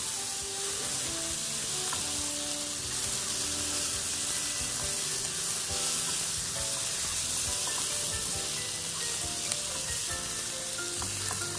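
Chopped tomatoes, onion and garlic sizzling steadily as they fry in oil in a non-stick pan, stirred and scraped with a wooden spatula; the tomatoes are being cooked down into a sauce.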